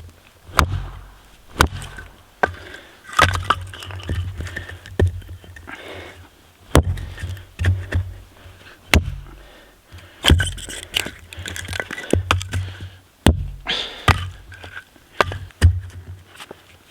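Firewood being chopped: a run of sharp, irregular chopping strikes, roughly one a second, each with a dull low thud.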